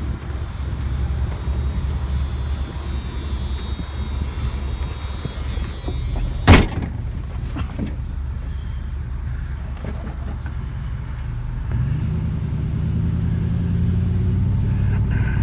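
Vehicle engine idling with a steady low rumble, a single loud bang about six and a half seconds in, and the engine note rising slightly near the end.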